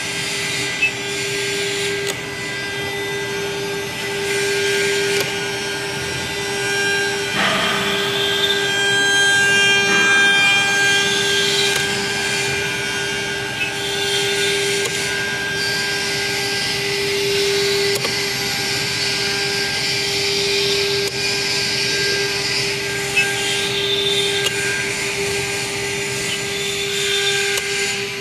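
CNC router spindle running at a steady pitch while its bit drills a row of holes into an acrylic sheet, the cutting noise rising and falling as the bit plunges and moves on.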